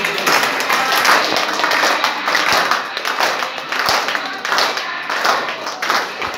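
A group of people clapping their hands, mixed with voices and music, with a few dull thuds.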